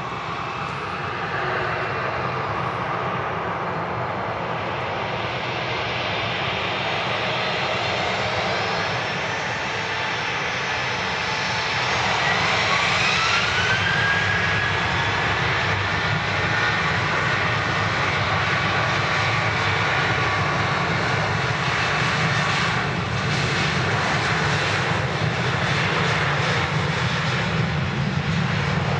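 Boeing 737 business jet's turbofan engines running loud and steady as the jet passes close by. Partway through, a high engine whine falls in pitch as it goes past, and the noise grows louder and stays up.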